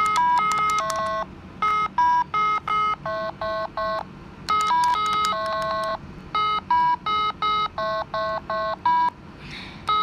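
Mini Simon carabiner keychain game (2010 model) beeping out its sequence: short, clipped electronic tones at several different pitches, one pitch per colored button, in quick runs with brief pauses between them.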